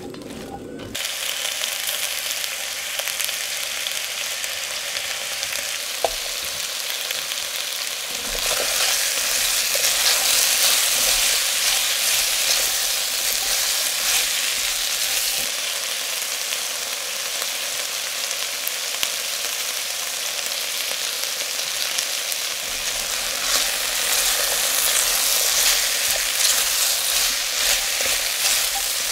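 Diced pumpkin, onion, garlic and chilli sizzling in olive oil in an enamelled pot as they slow-fry, stirred with a spatula. The hiss starts about a second in and swells louder for a few seconds in the middle and again near the end, with a single sharp click partway through.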